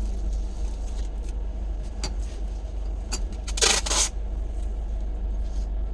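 Steady low rumble inside a train coach, with a few light clicks and one brief loud rushing, rattling burst about three and a half seconds in.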